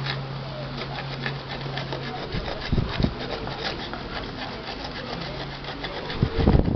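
Rapid, irregular scraping of metal on a pressure-cooker lid as a worn, lumpy spot is worked down by hand, with a couple of dull knocks, about two and a half seconds in and near the end.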